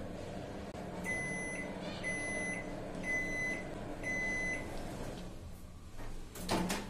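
Samsung microwave oven running with a steady hum, then beeping four times, about once a second, as its timer reaches zero. The hum stops about five seconds in, and near the end the door-release button is pressed and the door clacks open.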